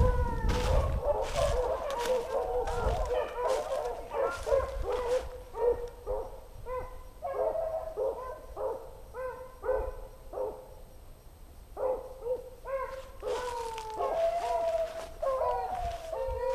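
A pack of beagles baying while running a rabbit, with a run of short, repeated yelps and some longer drawn-out bawls near the end that fall in pitch. Dry leaves and brush crackle underfoot at the start and again near the end.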